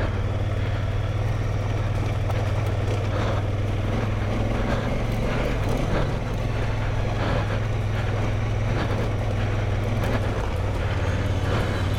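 Large adventure motorcycle's engine running at a steady low hum while riding a gravel forest road, with irregular crunches and knocks from the tyres over loose gravel and rocks.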